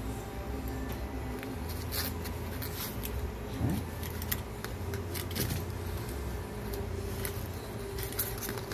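Scattered light clicks and rustles of thin wire leads and a plastic breaker housing being handled as shunt trip wires are fed through the breaker's side slots, over a steady low hum.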